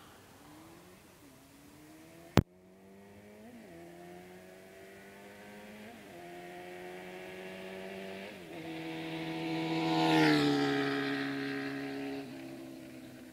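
1974 Honda CB750 chopper's inline-four engine accelerating up the road through the gears, its pitch rising and dropping back at each of three upshifts. It grows louder as it approaches, passes about ten seconds in with a drop in pitch, then fades away. A single sharp click about two and a half seconds in.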